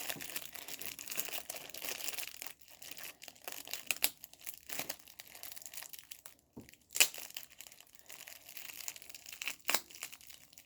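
Gift packaging and tape crinkling and crackling as hands pick the tape off and unwrap it, with a few louder sharp snaps, the loudest about seven seconds in.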